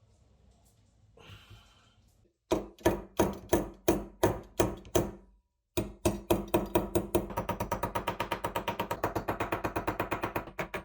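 Hammering: a few separate blows about two a second, then after a short pause a quicker run of blows, about five a second.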